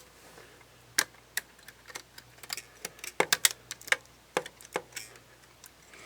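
Irregular small clicks and taps of hand tools against the parts of an opened Nikon D5500 camera, with a quick cluster of several clicks a little past the middle.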